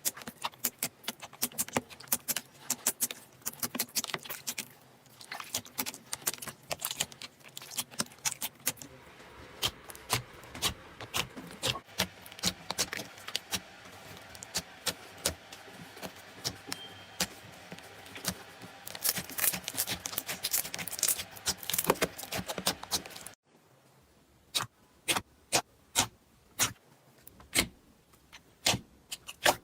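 Slime being squeezed and poked in close-up, giving fast crackling pops and clicks. About 23 seconds in the sound cuts off and switches to a quieter clip with sparser, separate clicks.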